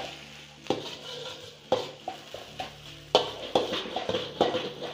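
Steel ladle clinking and scraping against a wok as fried rice is pressed and spread across the pan. About seven sharp knocks, spaced out at first and coming faster in the second half.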